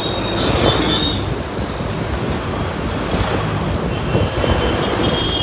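Heavy road traffic heard from the open window of a moving city bus: engines and tyres running on, other buses and vehicles passing close by. A thin high squeal sounds briefly near the start and again near the end.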